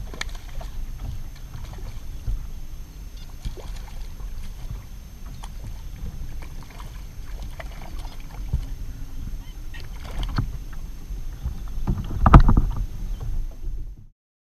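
Water sloshing at a fishing kayak's hull over a steady low rumble, with scattered small knocks. A louder splash comes about two seconds before the end as a small redfish is brought out of the water. The sound cuts off just before the end.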